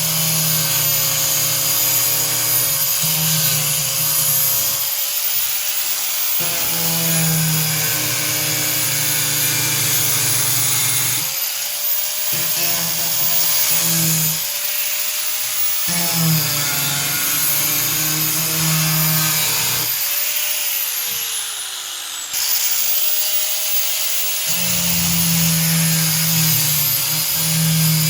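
Handheld power tool cutting into a fiberglass tub surround in slow, shallow passes. The motor runs continuously, and its pitch sags and recovers several times as the blade bites and eases off, with a harsh grinding hiss of the cut.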